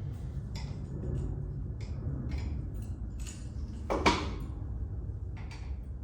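Metal clinks and clanks as the steel pins and top link of a compact tractor's three-point hitch are handled and pulled, with one louder clank about four seconds in, over a steady low rumble.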